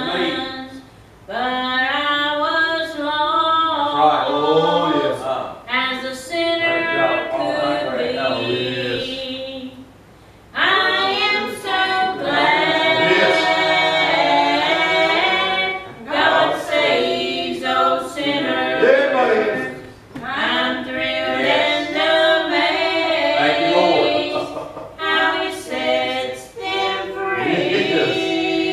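Three women singing together into microphones, unaccompanied, in phrases with short breaks between them.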